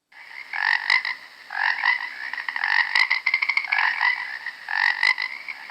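Frog croaking in several repeated bouts of quick pulsed calls.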